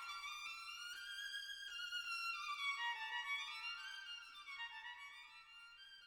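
Background music: a single melody line that slides down and back up in pitch, with no voice over it.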